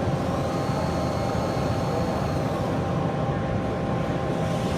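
Steady machinery din of a machine-tool exhibition hall: a constant wash of noise with a few steady hums and a faint high whine in the first half.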